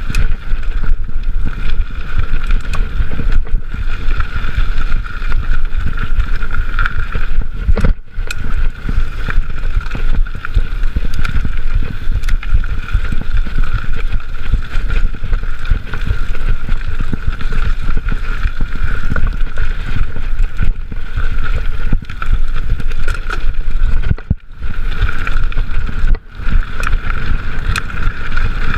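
Mountain bike riding fast over rough singletrack: steady wind rush and tyre rumble with constant small rattles from the bike, heard through a chest-mounted camera. The noise drops briefly about eight seconds in and twice near the end.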